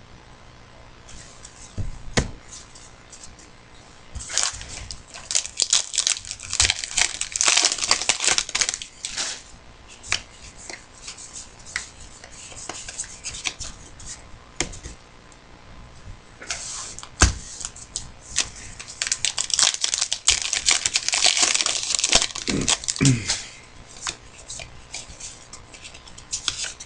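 Trading card pack wrappers being torn open and crinkled, in two long spells of crackling, with cards and packaging handled in between.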